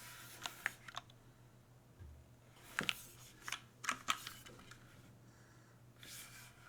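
Mechanical keyboard with tactile MX Brown switches on a carbon fibre plate and GMK keycaps, typed on in scattered keystrokes: a few strokes about half a second in, then a quicker cluster of five or six between about three and four seconds in.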